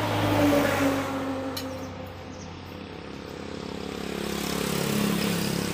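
Engine hum of two motor vehicles passing by, one after the other: the first swells and fades about half a second in, the second swells near the end, each dropping a little in pitch as it goes by.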